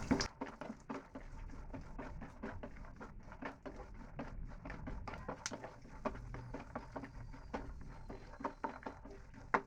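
Peanuts, almonds and cashews frying in a little hot oil in a pan on low heat, with a faint, irregular crackling of small pops.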